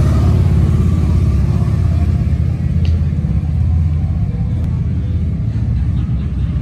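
Several motorcycles riding past with their engines giving a loud, steady low rumble.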